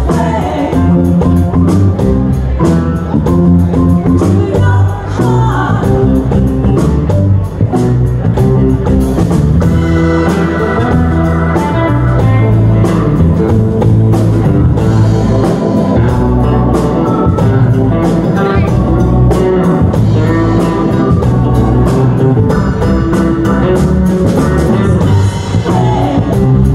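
Live band playing an up-tempo soul-rock song: electric guitars, bass and drums with women singing.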